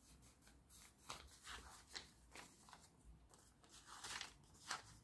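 Faint rustling and crinkling of a paper sheet handled and folded by hand, in short scrapes spaced about half a second to a second apart, the loudest near the end.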